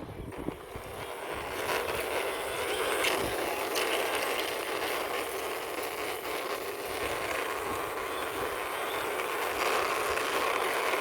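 A toy vehicle's plastic wheels rolling steadily across a hard surface as it is pushed along by hand, with small clicks and rattles.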